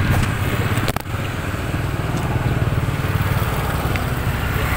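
Road traffic, mainly motorcycles passing, with their engines running steadily. There is a short click about a second in.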